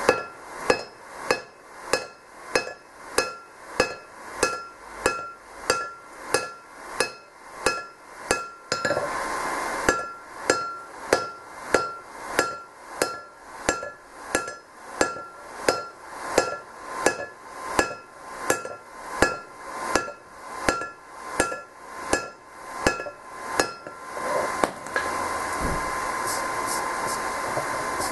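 Hand-forging blows of a hammer on a red-hot sledgehammer head lying on a homemade anvil: steady strikes about two a second, each with a bright metallic ring. There is a short break about nine seconds in. Near the end the blows stop and a steady hiss is left.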